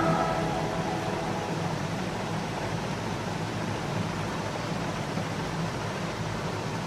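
Background music fading out in the first half second, leaving a steady hiss with a faint low hum.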